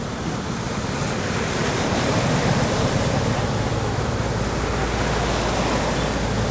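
Floodwater rushing and splashing as an SUV ploughs through it, its tyres and body pushing up a wake and spray. The churning swells over the first couple of seconds and then holds steady, with a low drone underneath from about halfway.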